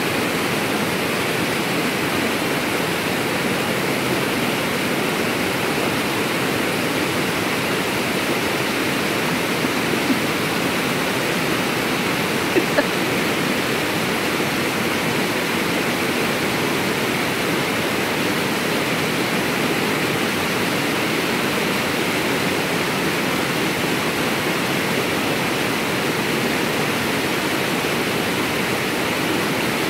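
Small waterfall pouring down a rock chute into a creek pool: a steady rush of falling water.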